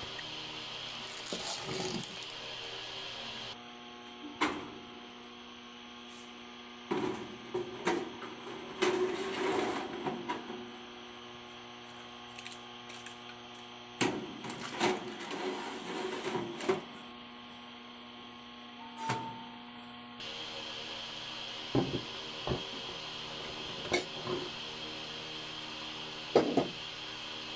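A steady electrical hum with scattered short clicks, knocks and rustles from baking trays, parchment paper and a small countertop oven being handled, busiest in the middle and near the end.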